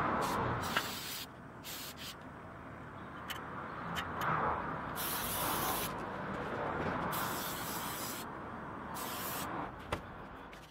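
Aerosol spray paint can hissing in a series of short bursts, the longest about a second, as it coats a hanging axe head black.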